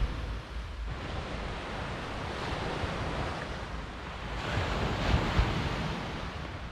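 Surf washing onto the beach, a steady rush that swells about four and a half seconds in, with wind rumbling on the microphone.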